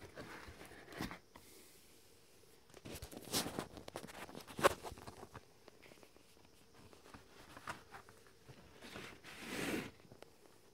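A shrink-wrapped vinyl LP sleeve being handled in a cardboard shipping box: scattered rustles and soft taps, one sharper tap about four and a half seconds in, and a longer sliding rustle near the end as the sleeve is turned over.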